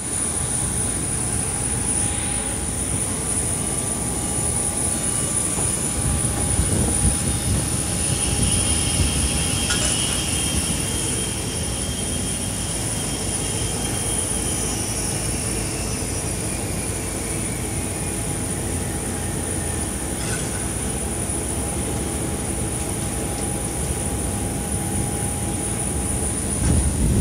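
Steady rumble inside an airliner's cabin on the ground, with a faint steady hum. A faint high whine slowly falls in pitch around the middle.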